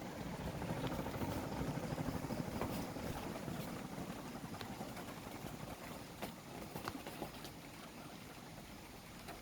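Mitsubishi C48-GM 48-inch ceiling fan running with a steady low whir and a few faint ticks, the whir fading gradually.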